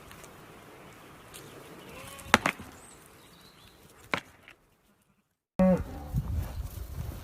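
Faint background hiss broken by two sharp clicks, then, after a short gap of silence, a farm animal calls loudly about two thirds of the way through.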